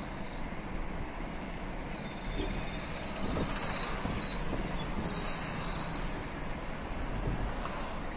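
Steady road and wind noise from inside a moving Maruti Suzuki Swift, with tyre rumble and traffic going by; it grows a little louder about three seconds in.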